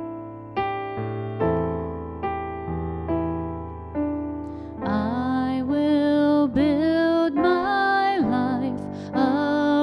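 Worship music: a piano plays slow single chords and notes that ring and fade. About five seconds in, a voice comes in over it, singing long held notes that slide into pitch.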